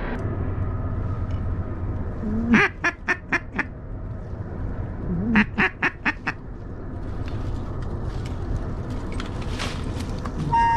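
Duck quacking in two runs about three seconds apart, each a longer quack followed by about five short quick ones. A short whistle sounds right at the end.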